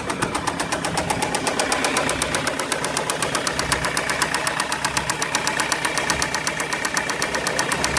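Ford Transit Connect 1.8 diesel engine running cold with a rapid, even knocking. The owner takes the knock for possible piston slap.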